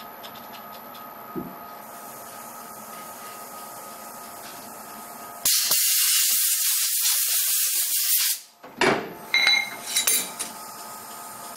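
A loud hiss of pressurised spray for about three seconds, starting about halfway through and cutting off sharply, followed by a few ringing metal clinks.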